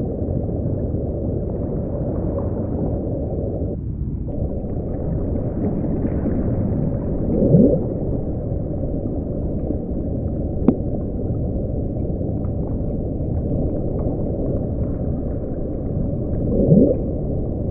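Underwater ocean soundscape: a steady, deep rushing noise, with two short rising whale calls about nine seconds apart and a single sharp click near the middle.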